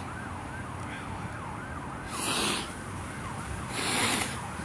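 A siren in a fast yelp, about three rising-and-falling sweeps a second, steady throughout. Two short rushes of noise come about two and four seconds in.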